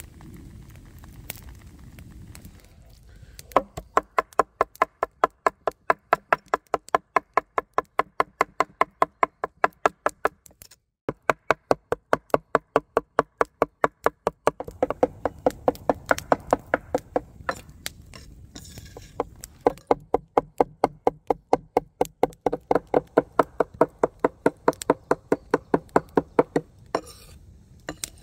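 Knife chopping fast on a wooden cutting board, in long runs of about four even strokes a second with a brief pause partway through.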